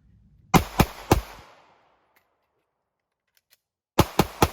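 Pistol fired in two strings of three quick shots, each shot about a quarter to a third of a second apart, with about three seconds between the strings.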